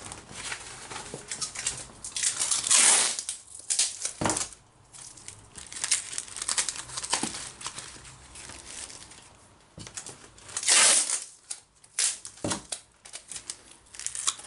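Clear plastic bags crinkling and rustling as they are handled, in irregular bursts, loudest about three seconds in and again about eleven seconds in.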